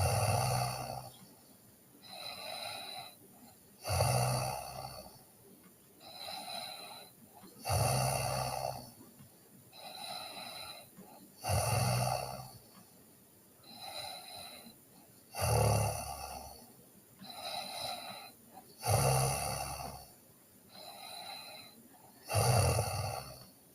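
A sleeping girl snoring in a steady rhythm: a low snore about every four seconds, seven in all, with a softer breath between each.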